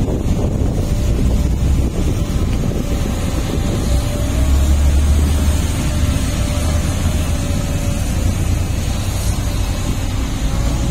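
Heavy construction machine's diesel engine running with a deep, steady rumble, loudest about four to six seconds in, with wind buffeting the microphone.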